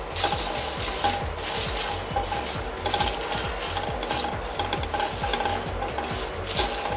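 A flat wooden spatula stirring and scraping whole spices in a nonstick pan as they dry-roast: coriander, cumin and fennel seeds with dried red chillies and bay leaves. The seeds rattle and click irregularly against the pan.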